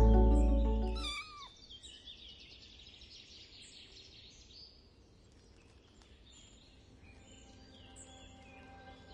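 Faint, high mews from a tiny kitten being given CPR, the clearest about a second in and a few more near the end, over a thin hiss. Background music fades out in the first second.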